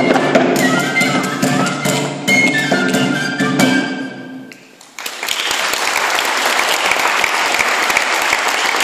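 Gyimes Csángó folk dance tune on a plucked short-necked lute with a high melody line and a steady beat, fading out about four and a half seconds in. Audience applause follows.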